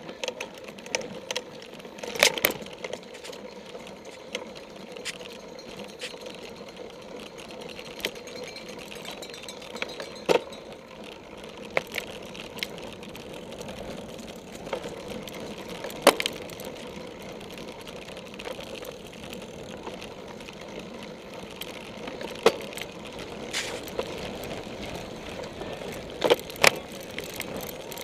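Cyclocross bike riding over rough dirt and grass: steady tyre and drivetrain noise, broken by scattered sharp knocks and rattles as the bike hits bumps. The loudest knock comes about halfway through.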